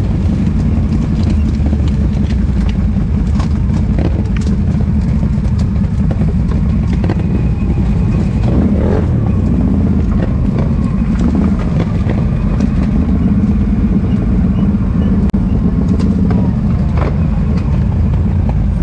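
Four-wheeler's engine running steadily under way, with scattered sharp knocks and clatters through it.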